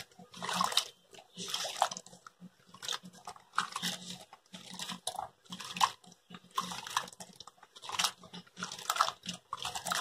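Water sloshing and splashing in a bowl as a hand swishes cut elephant foot yam (karunai kilangu) pieces around to wash them, in repeated swishes about once a second.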